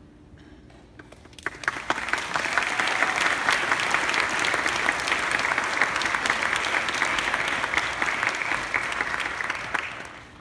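Large congregation applauding. Scattered claps about a second and a half in build quickly into steady, dense applause, which dies away near the end.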